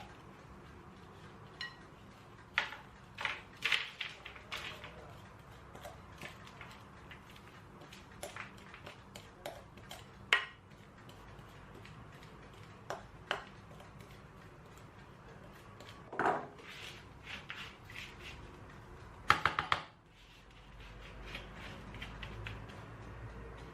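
Scattered clinks and knocks of dishes, utensils and cookware being handled, a few of them louder and ringing. After a sudden drop about 20 seconds in, a low steady hum sits under fainter clicks.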